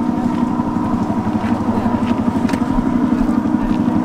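Simulated helicopter noise played back: a steady, fast chop of rotor blades over an engine hum, growing slightly louder.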